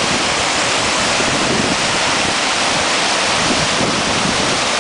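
Loud, steady rush of river whitewater pouring over a weir.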